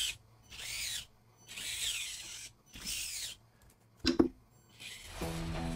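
Axial SCX24 micro crawler's stock brushed motor and geartrain, fitted with underdrive axle gears, whining in three short throttle bursts that rise and fall in pitch as it drives back and forth. A sharp knock about four seconds in, and music starts near the end.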